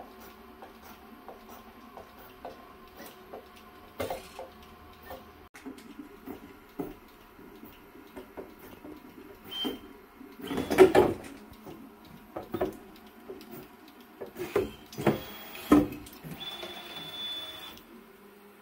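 A large CoreXY 3D printer running a print: its stepper motors whine with steady tones under a stream of short ticks as the print head moves and changes direction. There are louder, harsher bursts of noise about ten seconds in and again around fifteen seconds, and a high steady tone near the end.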